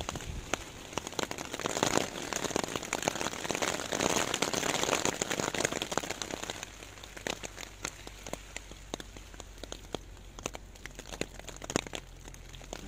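Rain falling, with many drops tapping on a surface. It is heavier for the first half, then eases to lighter, scattered drops after about six seconds.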